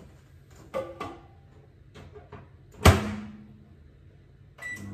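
Microwave oven door shut with a bang about three seconds in, after a few lighter knocks. Near the end a short button beep, then the microwave starts running with a steady low hum, reheating rice.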